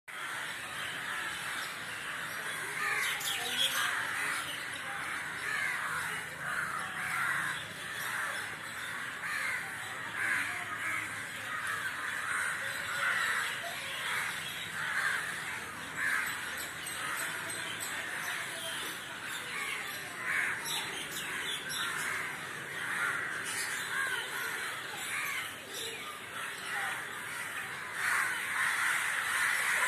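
A flock of crows cawing together, many calls overlapping in a continuous din.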